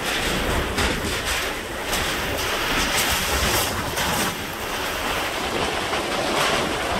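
Hurricane wind and driving rain rushing in gusts, with wind buffeting the microphone, as the eyewall of a Category 3 hurricane arrives.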